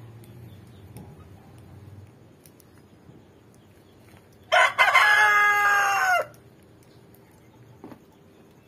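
A rooster crowing once, about four and a half seconds in: a short first note, then a long held call of nearly two seconds whose pitch drops at the end.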